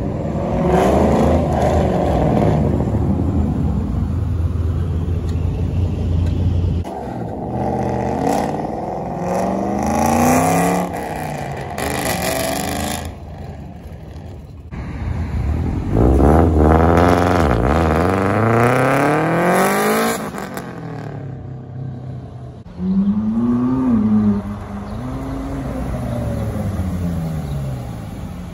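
Dodge Challenger Hellcat Redeye's supercharged V8 revved several times, each rev climbing and falling in pitch, with the engine running steadily in between.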